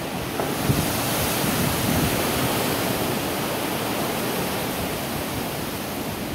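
Hurricane Matthew's wind and rain: a steady loud rush, with gusts buffeting the microphone about a second in.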